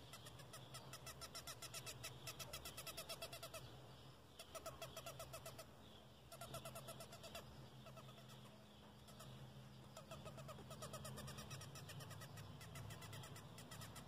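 Blowflies buzzing faintly with a low hum, heard plainly for several seconds around the middle. Over it run bursts of rapid, evenly spaced chirping pulses.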